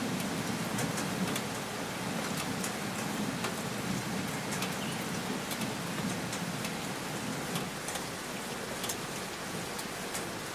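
Steady rain falling on a wet deck and wooden table, with many sharp single drops standing out from the even hiss.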